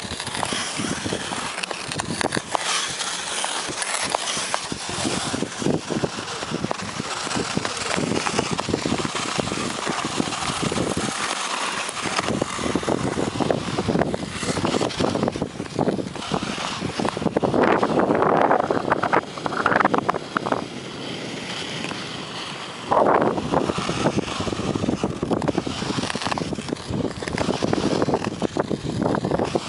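Ice skate blades scraping and hissing over natural lake ice, stride after stride, from the skater's own skates. The scraping grows louder and rougher for a couple of seconds about two-thirds of the way through, and again briefly a little later.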